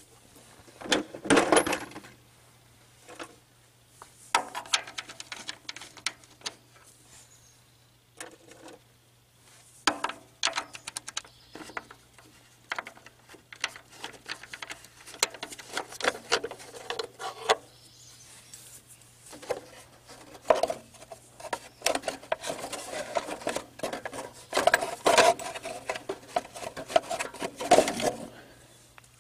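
Hands taking the plastic air pre-heater housing off an Onan generator and pulling out its air filter: irregular clicks, scrapes and rattles of parts being handled, busiest near the end.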